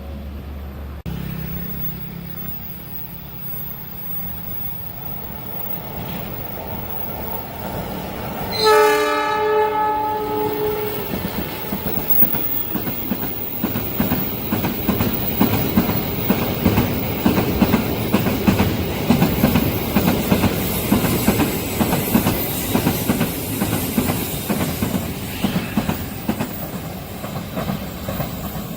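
A train approaching a level crossing sounds its horn once, a blast of about two seconds, then passes close by with a fast, steady clatter of wheels over the rails.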